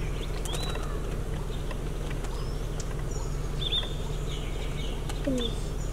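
Forest birds chirping in short scattered calls over a steady low hum. Near the end comes a single low descending hoot-like call.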